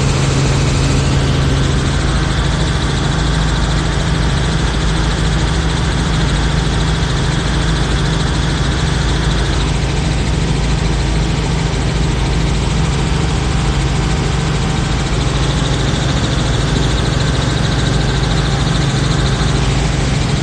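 A light helicopter's engine and rotors drone steadily, heard from inside the cabin.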